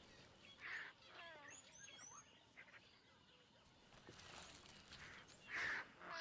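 Faint bush ambience with a few brief bird chirps and gliding calls about one to two seconds in.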